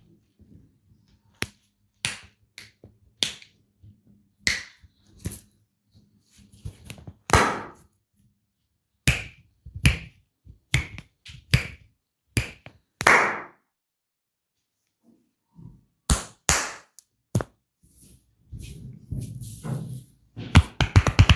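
Massage hands slapping and patting on skin: irregular single smacks and taps about once or twice a second, some drawn out into short swipes, with a quick run of taps near the end.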